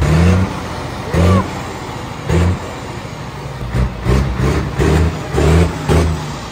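DAF CF heavy recovery truck's diesel engine idling and blipped repeatedly, each short rev rising in pitch: a few spaced about a second apart, then several in quick succession in the second half.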